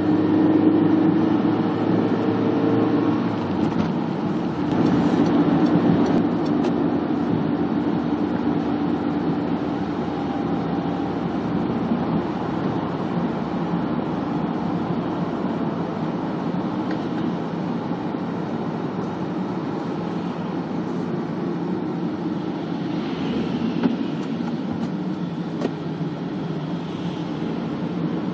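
Car engine and road noise heard from inside a moving car: a steady drone with an engine hum that is louder in the first several seconds, then evens out.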